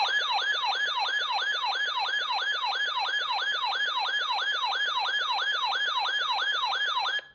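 Electronic siren-style alert tone: a falling pitch sweep repeated rapidly, about three times a second, at a steady loudness. It cuts off abruptly near the end.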